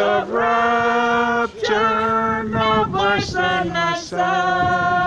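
A group of voices singing a slow hymn unaccompanied, holding each note for a second or more.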